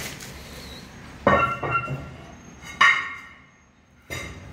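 Two sharp, ringing clinks of hard stone pieces knocking together, about a second and a half apart. Each rings briefly with a bell-like tone, and a duller knock comes near the end.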